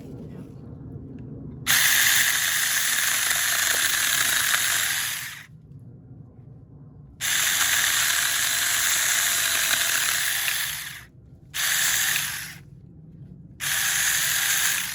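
Battery-powered Saker mini chainsaw running in four bursts, two long and two short, as it cuts through a small tree limb.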